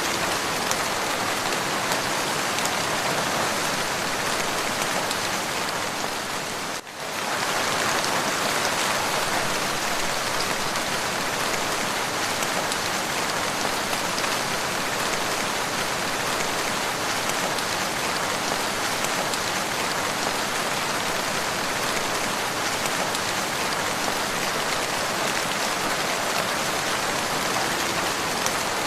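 Steady rain falling, a dense even hiss that dips briefly about seven seconds in and then carries on unchanged.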